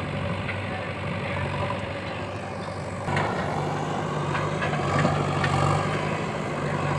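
JCB backhoe loader's diesel engine running steadily. It gets louder about three seconds in, and a few short knocks and clunks follow over the next couple of seconds.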